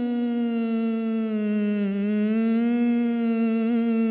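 A man singing Islamic religious inshad (munshid) solo, with no accompaniment, holding one long melismatic vowel note that wavers in small ornamental turns near the end.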